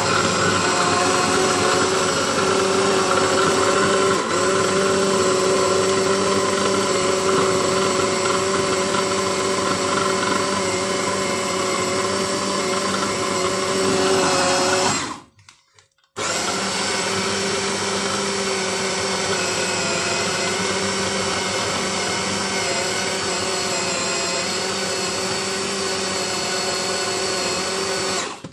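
Small electric food chopper's motor running steadily while its blade blends a burger mixture of minced meat, onion and egg. It stops for about a second around the middle, then runs again until just before the end.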